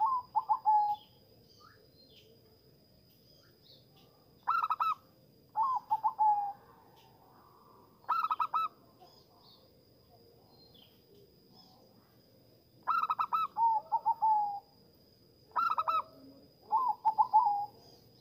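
Zebra dove (perkutut) singing: about five phrases, each a quick run of short staccato notes followed by a wavering, trilled coo.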